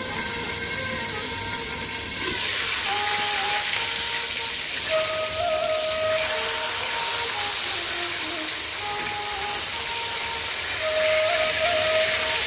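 Aor catfish steaks frying in hot oil in a cast-iron pan with a steady sizzling hiss, a fish that spatters a lot as it fries. The sizzle grows louder about two seconds in, as the lid comes off the pan. Background music plays over it.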